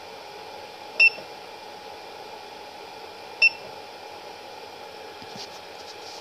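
Anet E16 3D printer's control-panel buzzer giving two short, high beeps about two and a half seconds apart, confirming menu selections as a file is chosen from the SD card and the print starts heating. A steady hum runs underneath.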